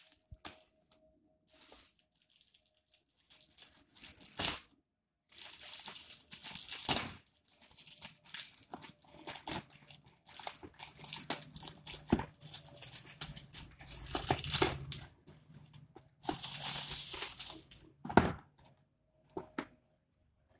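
Plastic courier mailer bag being torn open and crinkled by hand: irregular bursts of ripping and rustling, the longest and loudest stretches starting about a quarter of the way in and again near three-quarters through.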